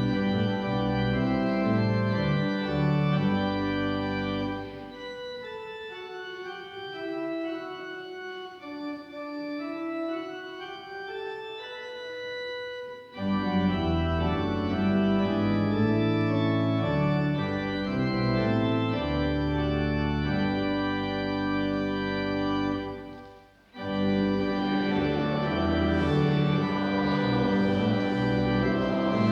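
Church organ playing a hymn in sustained full chords, with a softer, thinner passage in the middle and a short break about 23 seconds in before the full sound returns.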